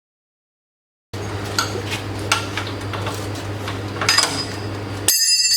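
Metal objects clinking and clattering over a steady low hum. About five seconds in, the sound cuts abruptly to a steady high-pitched whine.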